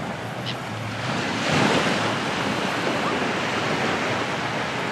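Sea waves breaking and washing up on the beach, a steady rush of surf with a louder surge about a second and a half in.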